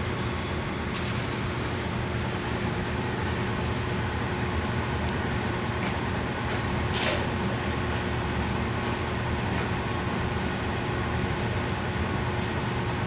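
Steady low rumbling background noise with a faint constant hum, and a single brief click about seven seconds in.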